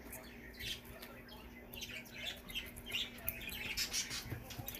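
Glitter slime packed with foam beads being pressed and kneaded by hand, giving soft, irregular squelches and crackles.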